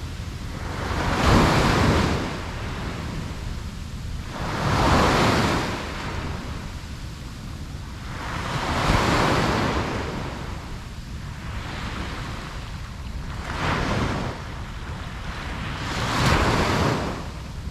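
Ocean surf washing onto a beach. Waves surge in about every three to four seconds, five times, each swelling and then falling back into a steady wash.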